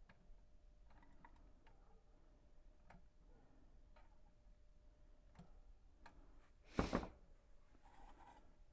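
Near silence: faint room tone with a few scattered light clicks, and one brief, louder noisy burst about seven seconds in.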